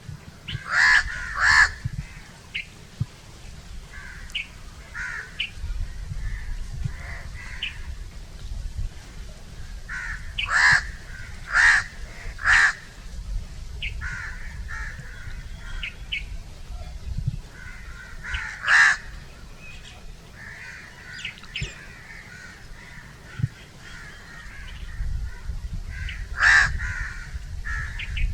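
Crows cawing. There are loud, harsh caws in groups: two near the start, a run of three about ten seconds in, a single one past the middle and another near the end. Softer calls come in between, over a low background rumble.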